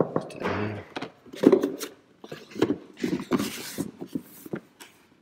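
Watch packaging being handled and opened: an irregular run of clicks, light knocks and rustling scrapes as a box and its inserts are worked open.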